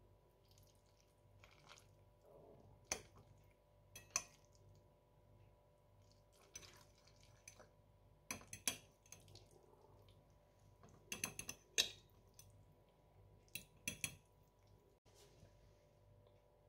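Metal fork clinking and scraping against a plate while twirling tagliatelle: scattered short clicks, some in quick clusters, over a quiet background.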